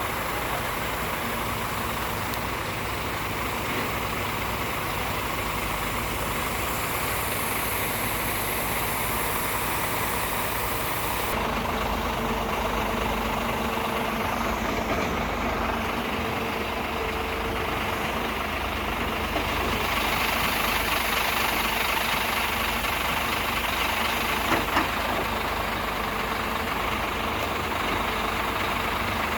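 Heavy diesel machinery engine running steadily, its sound shifting about 11 seconds in, with two short knocks near the end.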